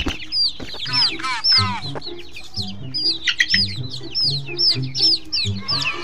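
Chicks peeping: a steady run of short, high, downward-gliding chirps, about two or three a second, over background music with a low repeating bass pattern.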